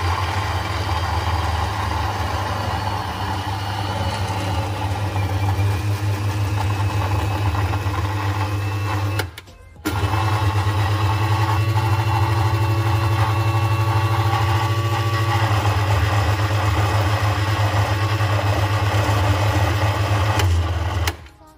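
Countertop blender motor running steadily as it blends a thick mixture of cream cheese, condensed milk and fresh milk. It stops for a moment about nine seconds in, starts again, and cuts off near the end.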